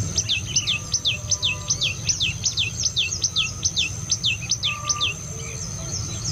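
Common tailorbird singing: a rapid run of sharp, down-slurred notes, about three a second, that stops about five seconds in. A steady high insect whine runs underneath.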